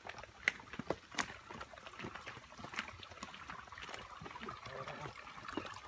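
Shallow stream water trickling and splashing over rocks, with many small irregular splashes and drips.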